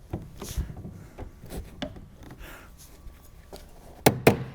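Faint rubbing and handling noises from the sheet-metal work, then near the end a quick run of sharp hammer knocks, several a second.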